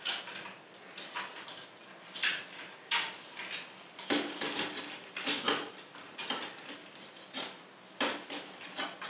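Plastic joints and parts of a knockoff MiniForce X Max dump-truck robot toy clicking and knocking as it is handled and folded into robot mode, in irregular sharp clicks.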